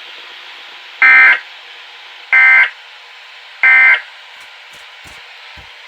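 Three short bursts of emergency-alert (EAS/SAME) digital data tones, the end-of-message code that closes a broadcast alert. Each is a harsh buzz about a third of a second long, about 1.3 s apart, over a steady hiss.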